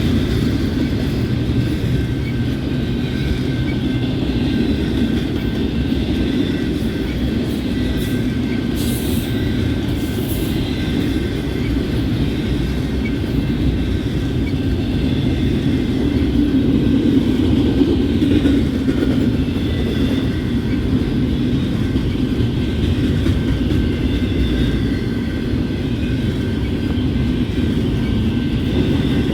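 A train rolling past, a steady loud rumble of wheels on the rails that runs without a break, with a couple of brief crackles about nine and ten seconds in.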